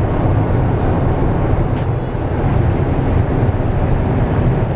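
Steady, deep rush of cabin noise inside a Boeing 777 airliner at cruise: engine and airflow noise filling the economy cabin. One faint click about two seconds in.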